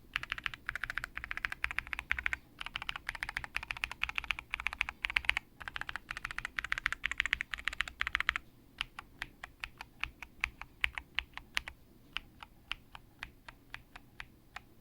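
Typing on a KBDfans Tiger 80 mechanical keyboard with lubed Aeboards Naevy tactile switches and thick PBT Cherry-profile keycaps. The first eight seconds or so are fast, continuous typing in three runs; after that come slower single keystrokes, about two a second.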